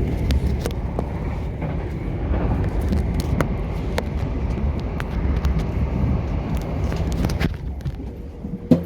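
Interior running noise of a Southern electric multiple-unit train: a steady low rumble with scattered clicks and knocks. The rumble drops away about a second before the end, then one sharp knock.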